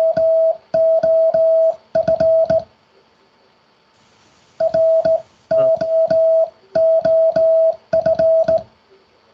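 Morse code sidetone, a steady single tone keyed on and off with a hand-operated straight key, with a click at each make and break. It spells out a practice word, apparently ROOF: the end of one sending, then after a pause of about two seconds the same word is sent again.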